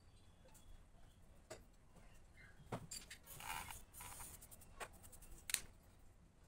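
Pink eraser rubbing on drawing paper for about a second, midway through, with a few light clicks and taps before and after it.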